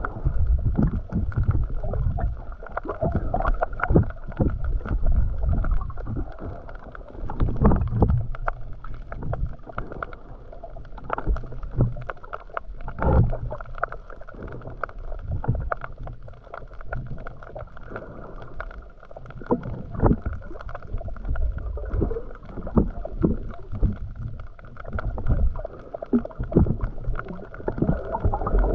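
Muffled underwater sound of swimmers moving through shallow sea water: an uneven low churning rumble that swells and fades, with scattered clicks and knocks.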